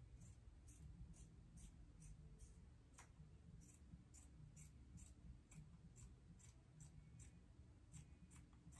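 Faint snipping of scissors cutting through a fabric tank top: quick, evenly spaced snips about two to three a second, with one sharper click about three seconds in.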